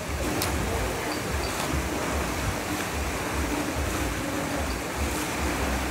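Steady rush of turbulent water churning at the foot of a concrete dam, with low gusty rumbles of wind on the microphone.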